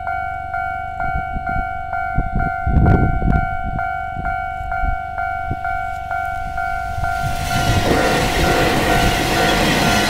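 Japanese level-crossing warning bell ringing steadily, about one and a half strikes a second. An electric train approaches and passes over snow-covered track, its rushing wheel and blown-snow noise building from about seven seconds in. A brief low rumble comes about three seconds in.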